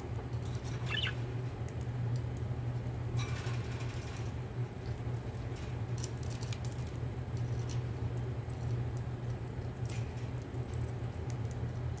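A steady low hum runs throughout, with a few short budgerigar chirps scattered over it.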